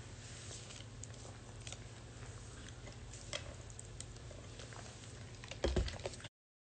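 Faint sipping through a straw from a large fast-food paper cup, with small scattered clicks over a low steady hum. A louder handling thump comes near the end, then the sound cuts off suddenly.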